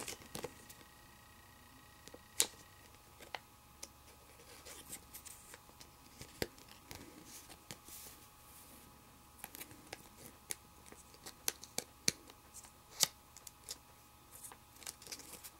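Trading cards and booster packs being handled off-camera: scattered light clicks and short rustles at irregular intervals, the sharpest about two and a half seconds in and again near the end.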